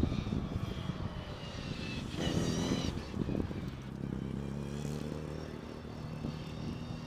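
Classic Mini's A-series four-cylinder engine revving and easing off as the car is driven hard around cones. There is a brief high tyre squeal a little over two seconds in, in a tight turn.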